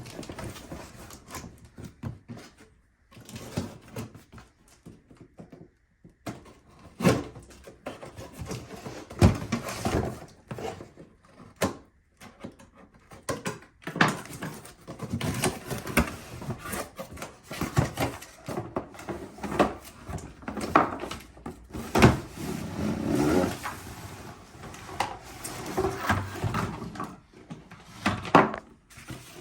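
Irregular knocks, clicks and rustles from a new electric hedge trimmer and its packaging being handled and unpacked; the trimmer's motor is not running.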